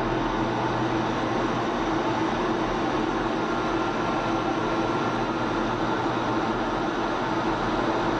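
Steady engine and airflow noise inside an F-16 fighter jet's cockpit in flight: an even, unchanging noise with a low hum underneath.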